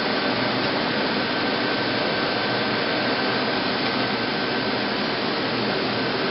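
Steady whirring machine noise from a powered-up Mazak Multiplex 6200Y CNC lathe, with a faint steady whine on top.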